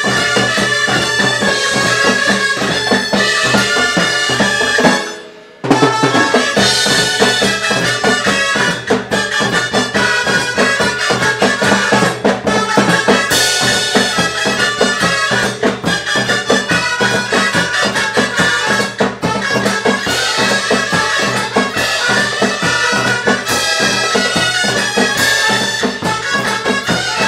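A band of dolçainas (Valencian shawms) playing a mambo tune together over drum kit and percussion. The music stops for a moment about five seconds in, then the whole band comes back in.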